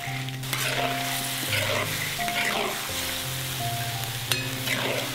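Crayfish with minced garlic sizzling in a large iron wok while a long-handled spatula stirs them, with repeated scraping strokes, over soft background music with held notes. A sharp click about four seconds in.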